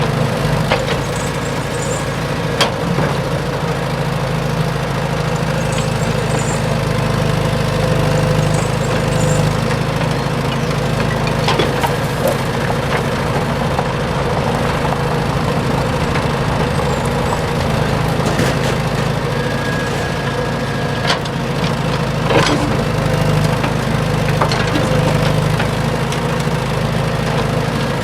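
A small engine running steadily at an even speed, with a few sharp clicks and knocks over it.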